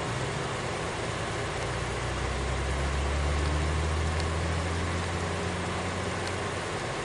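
Steady engine rumble over a constant hiss, with a low hum that swells about two seconds in, peaks in the middle and fades out near the end.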